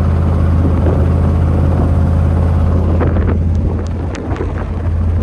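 Steady low drone of a 2001 GMC Sierra 2500HD pickup on the road, towing a camper, with wind noise. A few sharp ticks and clicks come in during the second half.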